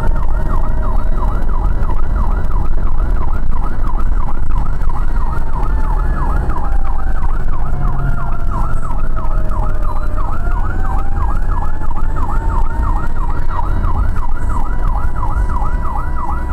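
Whelen Alpha 12Q siren sounding a fast yelp, about five rises a second. A slower wailing tone sweeps down to its lowest about ten seconds in and climbs back up. Engine and road rumble run underneath.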